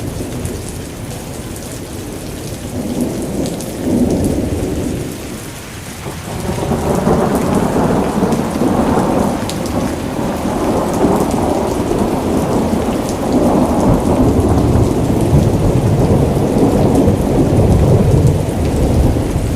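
Rain with a loud low rumble that swells and eases, with a brief dip about five seconds in and then louder and steadier from about six seconds on.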